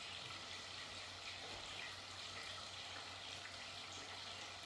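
Faint steady hiss with a low hum underneath.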